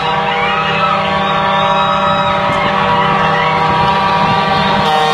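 A car horn sounding one unbroken note.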